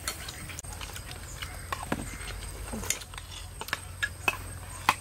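Spoons and forks clicking and clinking against plates at irregular moments as several people eat.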